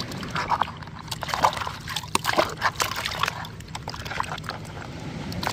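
Liquid sloshing and splashing in a plastic tub as a hand swishes an action figure through it, in quick irregular wet splashes.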